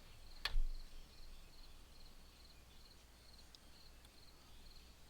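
Crickets chirping in a steady, high pulsing rhythm. A single sharp click with a low thump comes about half a second in.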